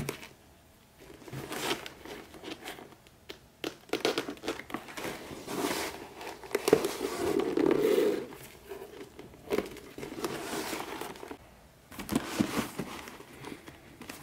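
A leather bag being hand-stitched and handled: irregular rustles, scrapes and creaks of the stiff leather panels being gripped and bent and of stitching thread drawn through the holes, with a few sharp clicks. The longest and loudest scrape comes about seven seconds in.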